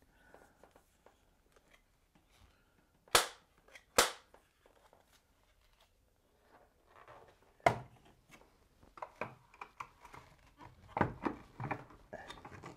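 Two loud, sharp plastic clicks about a second apart, then another click and a run of softer clicks and rattles as the lid of a plastic caravan-style mains hook-up socket is lifted and a plug is pushed into it.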